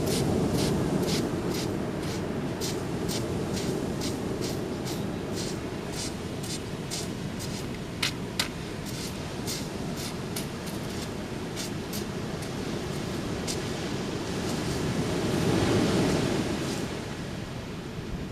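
Footsteps crunching on the beach at about two steps a second over the steady wash of ocean surf; the steps stop about three quarters of the way through as a wave swells up and breaks. Two sharp clicks just before halfway.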